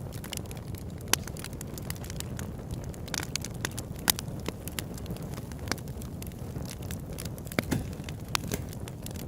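Campfire crackling: irregular sharp snaps and pops of burning wood over a steady low rumble, with a few louder pops scattered through.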